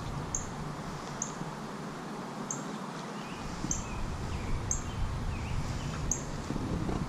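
Pond-side evening ambience: a short high chirp repeating about once a second, with fainter bird calls among it, over a low steady rumble.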